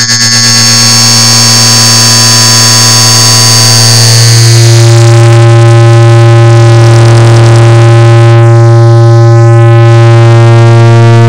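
Clock ticking sped up so far that the ticks have merged into a loud, steady, harsh buzzing tone, with a strong low hum and many overtones above it. The low hum grows slightly louder about four seconds in.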